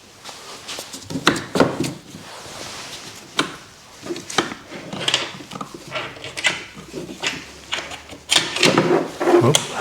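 Irregular knocks, clicks and clanks of hand tools and car parts being handled during disassembly, with a louder run of knocks near the end.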